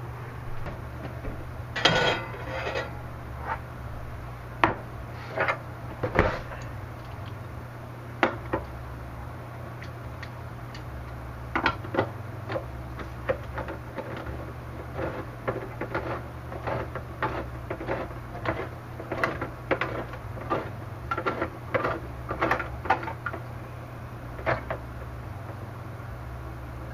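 Irregular knocks, clicks and rubbing of objects being handled and set down, busiest about halfway through, over a steady low hum.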